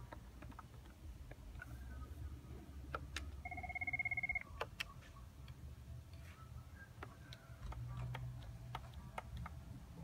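Cisco CP-8945 IP desk phone playing a short ringtone preview: a rapid electronic trill lasting about a second, a few seconds in. Scattered clicks from the phone's buttons being pressed and the phone being handled come before and after it.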